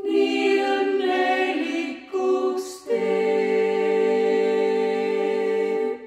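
Vocal ensemble singing a cappella in harmony: a few short phrases, a brief hiss about two and a half seconds in, then a long held closing chord that stops just before the end.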